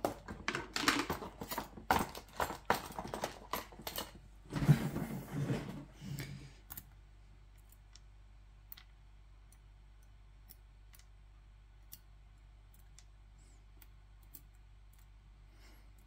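A quick run of small clicks and taps as lock pins and tweezers are handled, with a thicker burst of handling about four and a half seconds in. After about six and a half seconds it drops to near quiet, with a few faint ticks as tweezers set pins down on a rubber pin tray.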